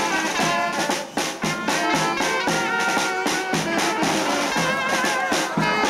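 Music with brass instruments playing a melody over drums.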